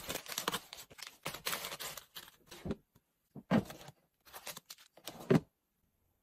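Plastic food packaging rustling and crinkling as it is handled, then a few separate knocks as items are set down in a refrigerator; the last knock, near the end, is the loudest.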